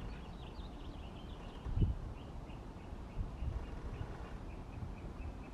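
A bird chirping in quick repeated series, over a low outdoor rumble, with a few dull low thumps, the loudest about two seconds in.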